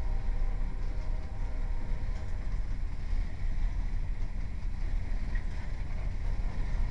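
Freight train rumbling past in a steady low roar, with a faint horn chord fading out over the first few seconds.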